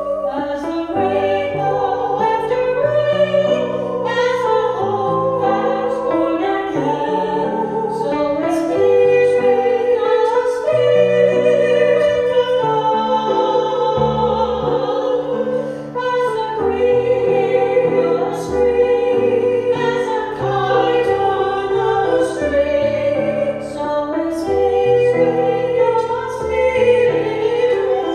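Two women singing a sacred vocal duet in sustained, classical-style lines over keyboard accompaniment with held bass notes.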